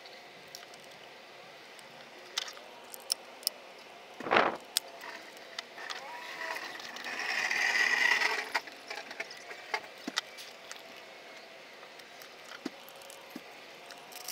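Hands working the plastic body off a 1/10 scale RC rock racer: scattered light clicks, a sharp knock a little over four seconds in, then a louder scraping rustle lasting about two seconds near the middle.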